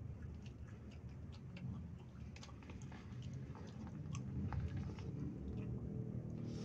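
Close-up chewing of a mouthful of nasi kuning (yellow rice), with many small wet mouth clicks and smacks, over a steady low hum.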